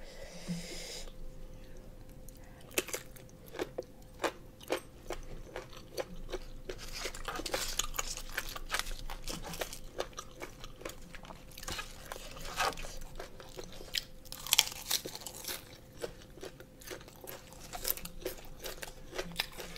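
Close-up chewing and crunching of boiled pig ears and fresh greens, heard as irregular crisp crunches and clicks from the chewy ear cartilage. The louder bites come in clusters at several points, with quieter chewing in between.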